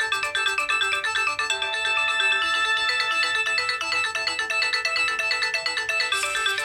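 Nokia 6555 mobile phone playing a ringtone: a fast electronic melody of short notes over a bouncing lower line, with one longer held note starting about a second and a half in.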